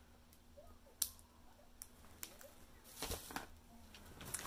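Faint handling of small plastic items: a few sharp clicks, the loudest about a second in, then a brief rustle about three seconds in.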